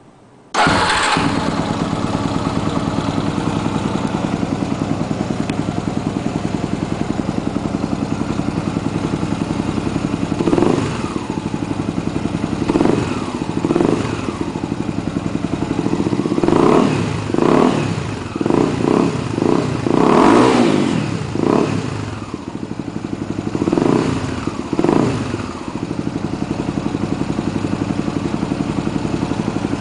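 Honda CBX 250 Twister's single-cylinder four-stroke engine with an aftermarket Coyote RS-3 exhaust, idling steadily. From about ten seconds in it is revved in a series of short throttle blips, some in quick succession, and then it settles back to idle for the last few seconds.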